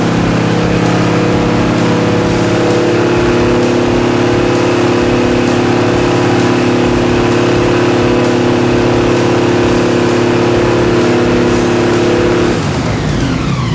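Airboat engine and propeller running steadily at high throttle, then throttled back near the end, the pitch falling away.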